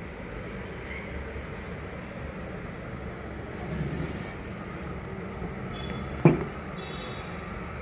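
Cloth wiping a wooden tabletop over a steady low rumble of background noise, with one sharp knock about six seconds in as a small brass pot is set down on the table.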